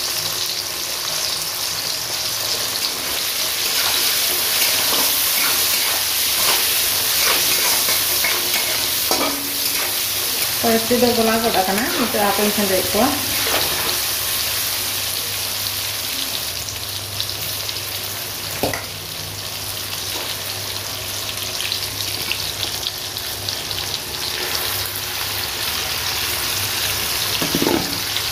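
Green mango sticks sizzling steadily in hot oil in a metal kadai, with a spatula stirring and scraping against the pan now and then.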